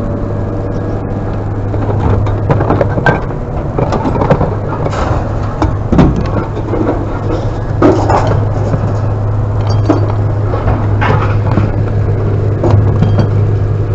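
Scrap metal clanking and banging irregularly as it is unloaded, some hits ringing briefly, over a steady vehicle engine idling.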